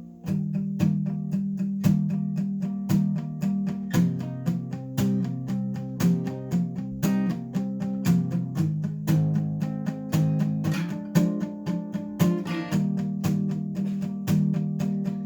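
Acoustic guitar strummed in a steady rhythm as a song's instrumental intro, the chords changing every couple of seconds.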